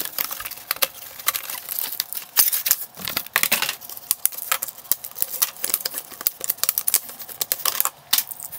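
Toy box and its plastic packaging tray being opened and the plastic Nerf scope, barrel and bipod attachments pulled out: a dense run of irregular sharp clicks, crackles and plastic clacks.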